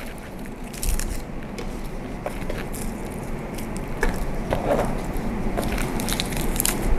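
Garlic cloves being peeled by hand, their papery skins crackling and scraping, with small clicks as peeled cloves drop into a plastic blender jar.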